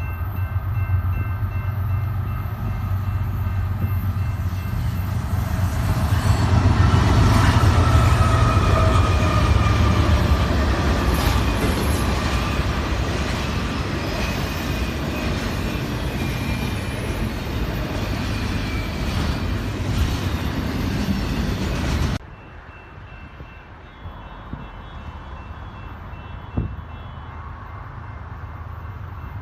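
A freight train rolling past: a heavy rumble of wheels on rail, loudest about a third of the way in, with thin squealing tones from the wheels partway through. About 22 seconds in it cuts off abruptly to a much quieter rumble.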